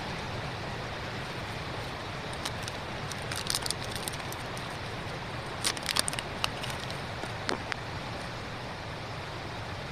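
Paper and plastic packaging of a screen-protector kit being handled: short clusters of clicks and crinkles about three seconds in and again around six seconds, over a steady low background rumble.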